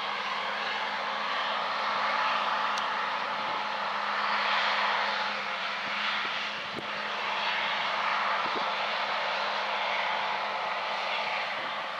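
Case combine harvester running steadily at work, a continuous machine noise with a faint low hum underneath.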